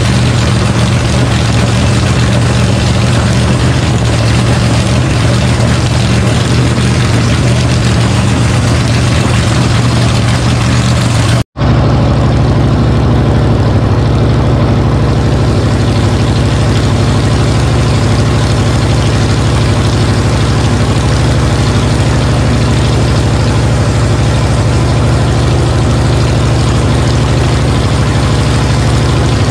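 A freshly built small-block V8 on an engine run stand runs steadily at a fast idle of roughly 2,000 RPM through open headers during its break-in run. About eleven seconds in the sound drops out for a split second, then carries on with a deeper, duller tone.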